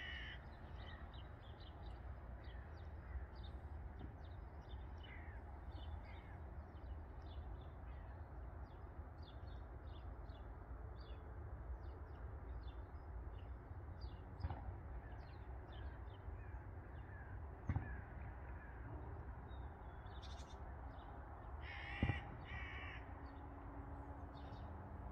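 Birds calling: a steady scatter of short high chirps, with louder, harsher calls at the very start and again about 22 seconds in, over a low steady rumble.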